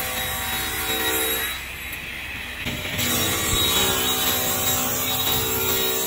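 Sliding table panel saw's circular blade running and cutting a pine pallet board. The sound eases for about a second near the middle, then the cut goes on.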